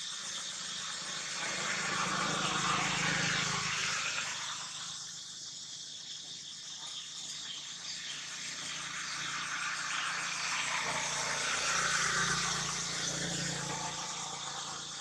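Outdoor ambience: a steady high insect drone throughout, with engine noise of vehicles passing by, swelling and fading twice, around two to four seconds in and again around eleven to thirteen seconds in.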